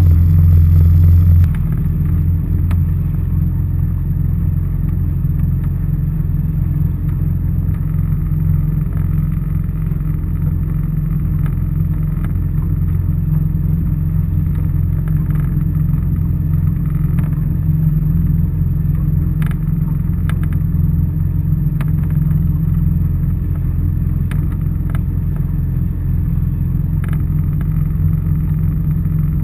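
A jet ski (personal watercraft) engine running steadily at low speed, a deep continuous hum that drops a step in level about a second and a half in. A few faint ticks sound over it.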